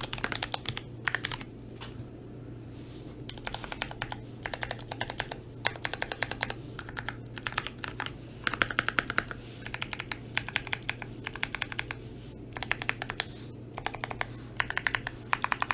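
Typing on a GMMK Pro custom mechanical keyboard with lubed Penguin tactile switches on a polycarbonate plate: bursts of fast keystrokes with short pauses between them.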